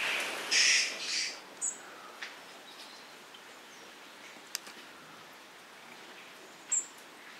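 Birds calling: two harsh, raspy calls about half a second and a second in, then a couple of short high chirps spaced several seconds apart, over a faint background hiss.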